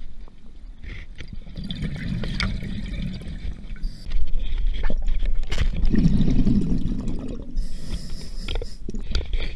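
Scuba diver breathing through a regulator underwater: two long exhalations of bubbles rumbling and gurgling past the camera, the second louder, then a hissing inhalation near the end.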